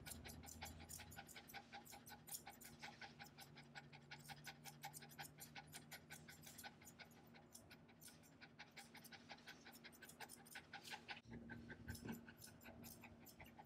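Mini American Eskimo dog panting rapidly and evenly, about six quick breaths a second, faint and close.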